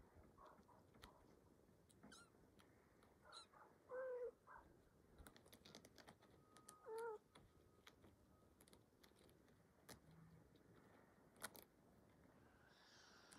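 Young kittens mewing: a handful of short, high mews, the loudest two about four and seven seconds in, with faint scattered clicks between them.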